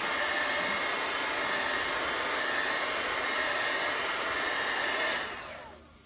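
Handheld craft heat tool blowing hot air to dry chalk paste on a chalkboard: a steady rush of air with a high whine running through it. It is switched off about five seconds in and winds down.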